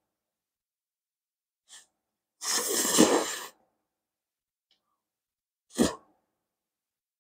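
Rice noodles of pad thai being slurped into the mouth: one long, loud slurp about two and a half seconds in, with a faint short one before it and a second short burst near the end.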